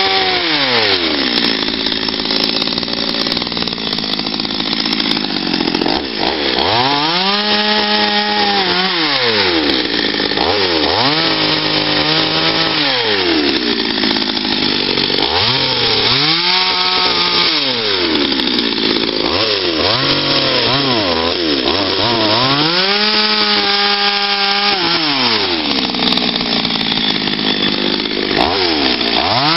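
Patriot two-stroke petrol chainsaw carving wood: the engine runs continuously, revving up to a high steady pitch and dropping back about four times, with lower, rougher stretches in between as the chain bites into the log.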